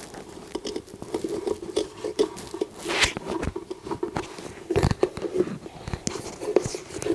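Light clicks, taps and scrapes of a removed furnace draft inducer blower assembly being handled and turned over during inspection, with a couple of louder knocks about three and five seconds in, over a faint steady hum.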